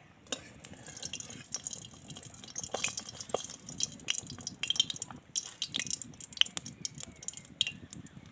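Biscuit dough rounds deep-frying in oil in a karai, the oil sizzling with quick, irregular crackles and pops around the dough.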